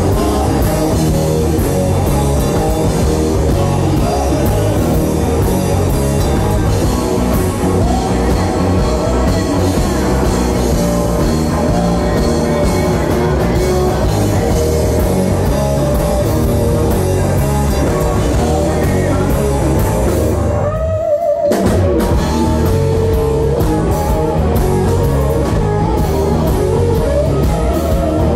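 Live rock band playing: electric guitars, bass guitar and drum kit. About three-quarters of the way through, the band breaks off for a moment, leaving a single sliding note, then comes back in.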